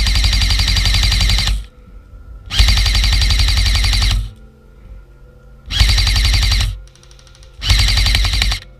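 Airsoft electric rifle (AEG), an Elite Force/VFC Avalon VR16 Saber Carbine M4, firing on full auto: four long bursts of rapid mechanical clacking, the first already under way and ending near the second mark, the next lasting about a second and a half, the last two about a second each.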